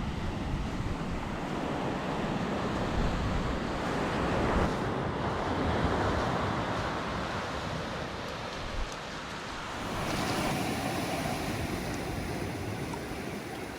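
Pacific surf washing onto the beach, rising and falling in slow swells, with wind gusting against the microphone.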